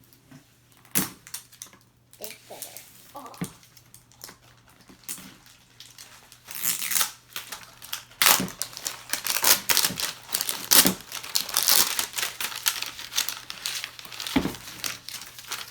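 Toy packaging wrap being crinkled and torn open by hand: a few scattered rustles at first, then dense, continuous crinkling and ripping through the second half.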